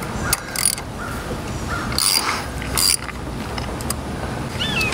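Hand ratchet wrench clicking and rasping in short strokes as it is worked on a seized diesel fuel injector.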